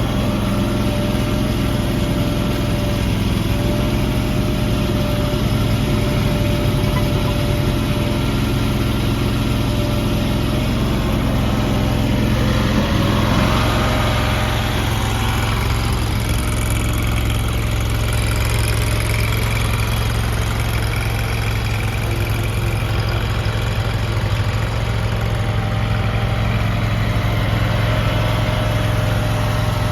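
LANDHERO mini skid steer loader's small engine idling steadily just after a cold start on a little choke, its note shifting slightly about 13 seconds in.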